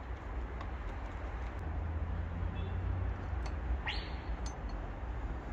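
Wind buffeting the microphone with a steady low rumble. About four seconds in, a single bird call: a quick rising whistle that settles on a short high note. A few faint clicks.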